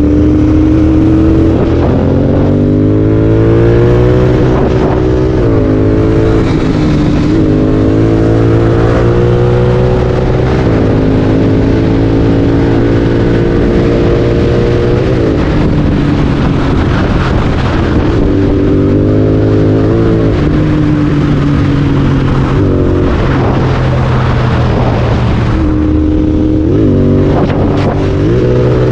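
Royal Enfield Continental GT 650's parallel-twin engine through a Red Rooster aftermarket exhaust, heard onboard while riding. The engine note is loud and climbs slowly, then drops back, several times over.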